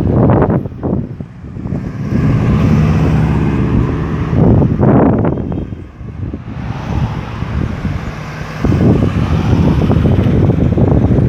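Road traffic at a busy roundabout: several vehicles passing one after another, their engines swelling and fading as each goes by.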